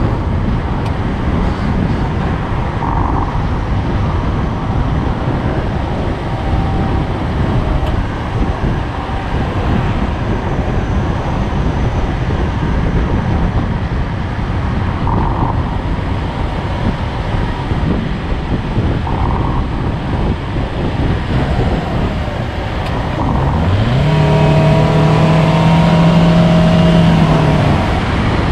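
Steady road and wind rumble from a moving vehicle. Near the end an engine note rises in pitch, holds steady for about four seconds, then drops away.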